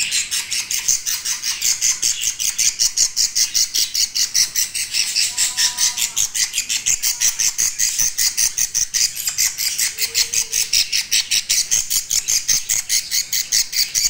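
Baby budgerigar chicks squawking: harsh, rapid high-pitched calls, about four to five a second, without a break.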